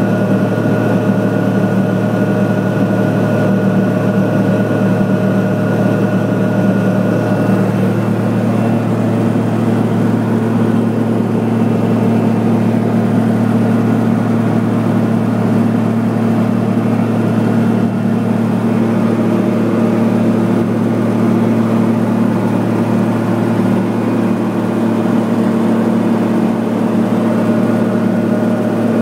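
Cockpit noise of a Pilatus PC-12's single Pratt & Whitney PT6A turboprop engine and propeller in flight: a steady low hum with constant tones above it. A few of the higher tones fade after about eight seconds and return near the end.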